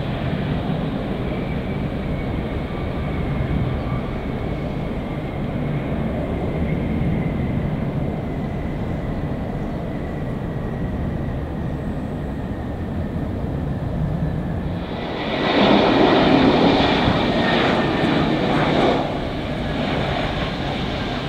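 Jet airliner engines running: a steady rumble with a faint high whine that slowly falls in pitch. About fifteen seconds in comes a louder, fuller burst of jet noise lasting some four seconds before it settles back.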